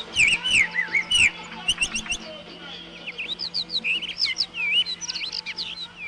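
Common rock thrush singing its spring song: a run of quick, clear whistled notes that swoop up and down, with a brief pause a little over two seconds in before the song resumes.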